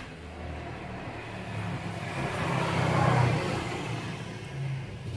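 A motor vehicle's engine passing by, growing louder to a peak about three seconds in, then fading.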